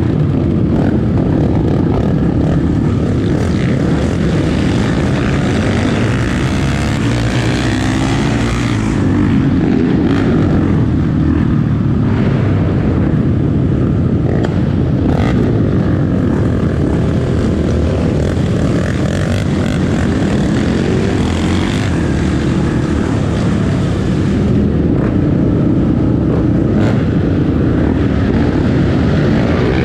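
A Honda Tornado 300 cc trail motorcycle's single-cylinder engine running steadily under way, heard from on board, with wind noise on the action camera's microphone.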